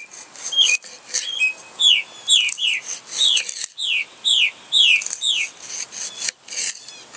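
A songbird singing a run of repeated down-slurred whistled notes, about two a second, over the soft scraping of a knife slicing a tomato on a plastic cutting board.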